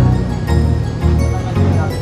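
Background music with a steady beat and a prominent bass line.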